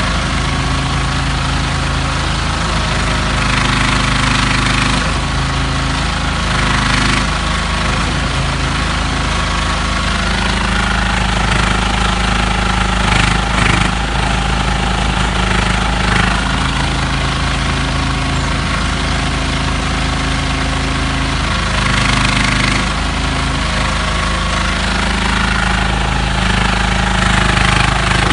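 Agrison mini excavator's engine running steadily while the boom and bucket dig. The engine note shifts in pitch and strength every few seconds as the hydraulics take up and release load.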